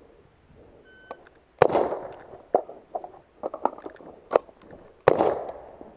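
A shot timer beeps about a second in, then an HK MR556 5.56 mm rifle fires two loud shots about three and a half seconds apart, each with a ringing tail. Several fainter sharp clicks and knocks fall between the shots.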